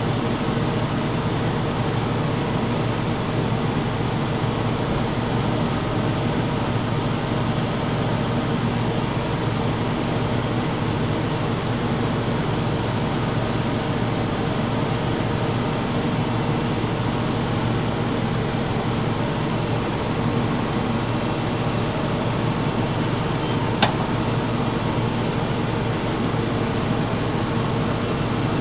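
Steady machine hum, an unbroken drone with one short click about 24 seconds in.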